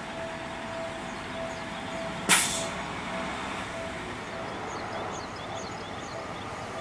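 Japanese railway level crossing alarm ringing in a repeating electronic ding as a Seibu 001 series Laview train approaches, with a single sharp burst of hiss about two seconds in.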